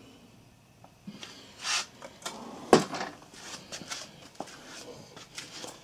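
Light handling sounds: soft rustles and small knocks, with one sharp click about three seconds in.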